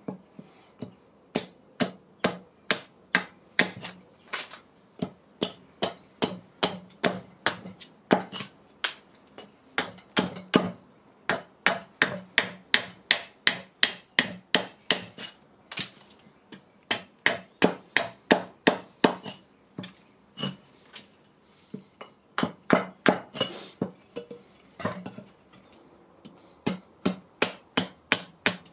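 Small carving axe chopping a wooden spoon blank braced on a chopping block: a steady run of sharp strikes, about two a second, with a few brief pauses.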